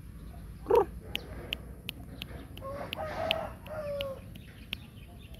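A rooster crows once, a call of about a second and a half starting about two and a half seconds in and ending on a falling note. A brief loud sound comes just before it, near the start, and sharp ticks repeat irregularly through the middle.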